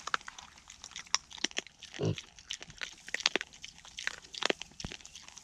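Young pigs grunting a couple of short times amid many small crunching, crackling clicks.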